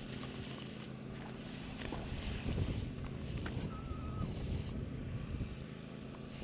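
Steady low hum of a bass boat's electric trolling motor, with wind on the microphone and light water noise.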